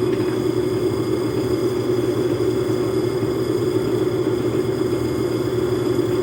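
Logan metal lathe running steadily under power, its motor and drive giving an even, unbroken hum.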